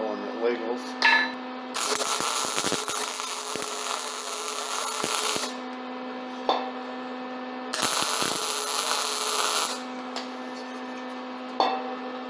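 Arc welding with a stick welder: two bursts of steady crackling from the arc, the first about four seconds long and the second about two, as the plug on a steel tank is tacked on, over a steady electrical hum.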